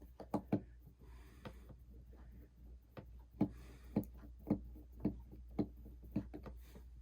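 Small, sharp clicks of a P2 pentalobe precision screwdriver turning out the bottom screws of an iPhone 6. A few scattered ticks come first, then a regular run of about two a second through the middle and later part.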